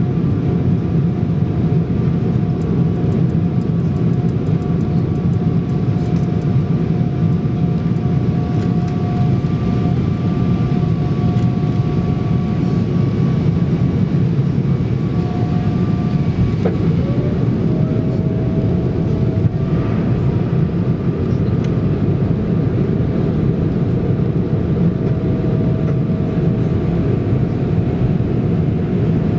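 Boeing 777 airliner cabin noise in flight: a steady engine and airflow roar with a thin, steady engine whine on top. About halfway through, one strand of the whine breaks off and settles back in a little lower.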